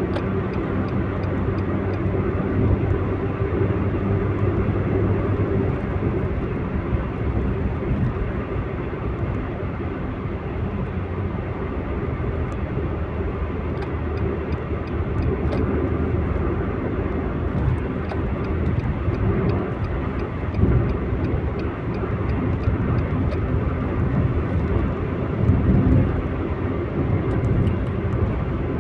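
Steady rumble of a car driving, heard from inside the cabin: engine and tyre noise.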